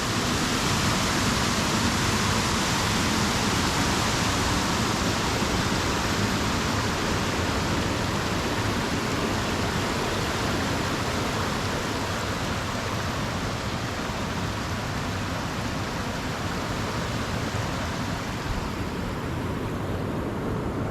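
Water rushing over a creek waterfall: a steady, full hiss of falling water, its higher part softening a little near the end.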